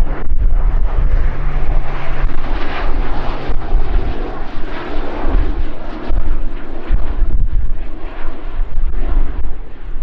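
Turboprop aircraft flying past low, engines and propellers running steadily, over a gusty low rumble of wind on the microphone.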